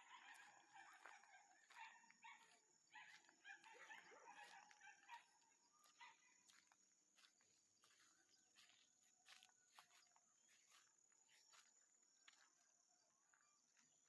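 Faint outdoor nature sounds: a busy mix of animal calls for about the first five seconds, thinning out after that, over a steady high-pitched insect drone, with scattered faint clicks.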